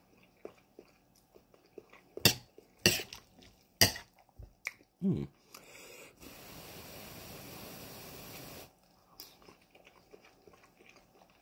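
Close-up eating sounds: a metal spoon clinks sharply against a metal bowl three times while scooping food, followed by chewing with small mouth clicks. Midway there is a steady rushing sound lasting about two and a half seconds.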